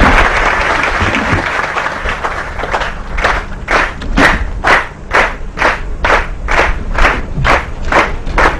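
Audience applause: a dense burst of clapping that settles after about three seconds into rhythmic clapping in unison, a little over two claps a second.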